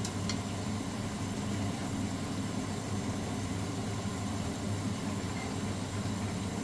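Steady low hum of a running motor or appliance, with two faint clicks right at the start.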